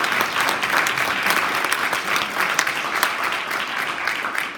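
Audience applauding steadily, many people clapping at once in a large hall, slowly tapering off near the end.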